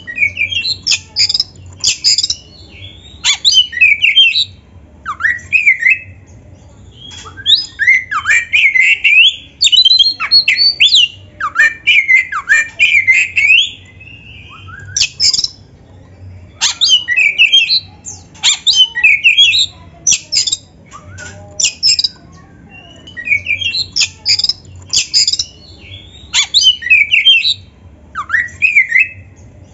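Oriental magpie-robin (kacer) singing vigorously in fighting mode: loud, quick, varied whistled phrases with rising and falling notes, delivered in bursts of a second or two with short pauses between them.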